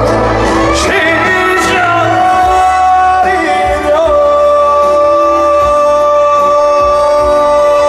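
Live trot music with band backing: a male voice sings a phrase that rises in pitch, then a long note is held steady from about four seconds in.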